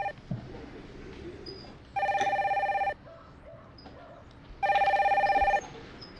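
Telephone ringing with a fast trilling electronic ring: a ring is just ending at the start, then two more full rings of about a second each come roughly two and a half seconds apart.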